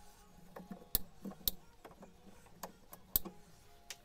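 A few sharp, separate plastic clicks and taps, the loudest about a second in and again near the end, from nylon cable ties being fitted to a laser engraver's aluminium frame, over a faint low hum.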